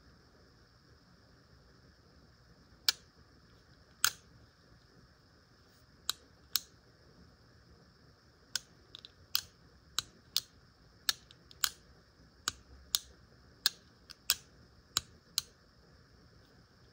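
Sharp metallic clicks from the action of a Remington Model 95 double-barrel derringer being worked by hand, about a dozen and a half single clicks and quick pairs, irregularly spaced.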